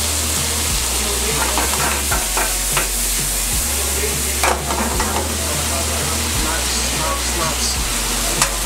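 Pepper steak sizzling in a non-stick frying pan over a gas flame as it is tossed and stirred, with a steady hiss and scattered light clicks and scrapes of the pan and utensil.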